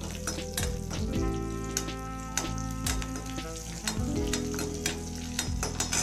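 Black pepper, cumin, small onions and ginger sizzling in oil in a metal kadai, being lightly roasted. A slotted metal spoon stirs and scrapes against the pan, with many sharp clicks and pops.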